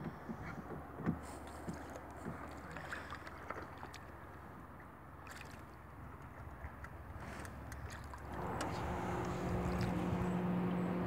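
Light water sounds and small knocks around a small paddled boat, then about eight seconds in a steady engine drone comes in and holds.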